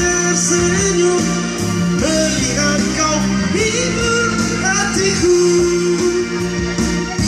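A man singing into a microphone over electronic keyboard accompaniment, both amplified through PA speakers; his voice holds long notes and slides between pitches.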